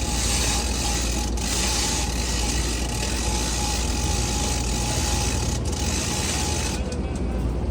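Steady mechanical running noise with a low rumble and a thin steady whine; the hiss in the top end drops away near the end.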